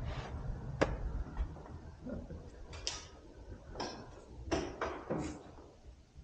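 Footsteps and light knocks on a stone church floor, irregular and spaced out, over a low background rumble.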